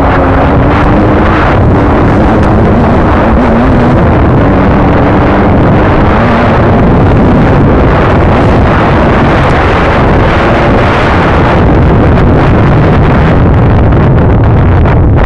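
Dirt bike engine running hard on a trail ride, its note rising and falling with the throttle, under heavy wind buffeting on the microphone. Very loud throughout.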